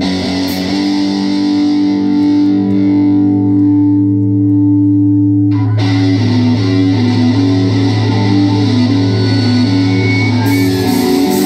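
Live rock band with distorted electric guitars, opening on a droning held chord. About five and a half seconds in, a guitar riff starts with the notes stepping up and down, and cymbals come in near the end.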